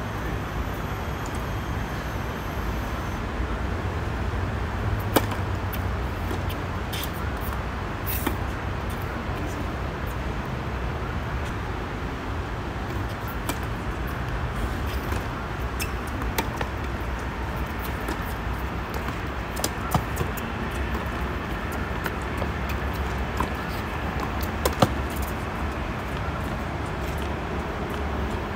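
Tennis balls struck by rackets and bouncing on a hard court: scattered sharp pops a few seconds apart, the loudest about 5, 20 and 25 seconds in, over a steady low outdoor rumble like distant road traffic.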